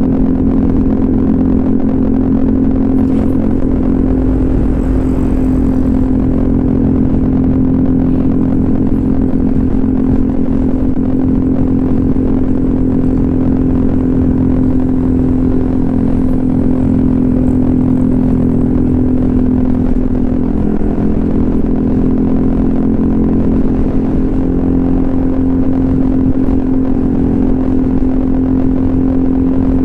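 Honda ADV 150 scooter's single-cylinder engine breathing through an aftermarket SC Project exhaust, running at a steady, even pitch while being ridden.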